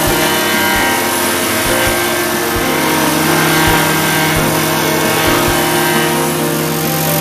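Wacker vibratory plate compactor running, its small petrol engine giving a steady drone while the plate pounds a fine crushed-gravel base, with uneven low knocks.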